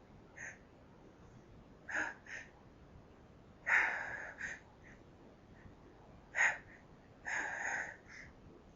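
A woman's sharp, gasping pre-sneeze breaths, about six in a row with the longest and loudest about four seconds in, as she fights back the urge to sneeze.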